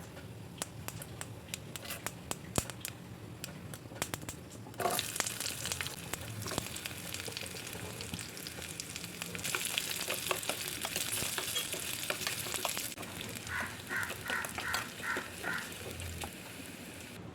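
Food frying in hot oil in a pan: scattered crackling and spitting at first, then the sizzling grows suddenly louder about five seconds in and keeps going. Near the end come a few quick, rhythmic stirring scrapes.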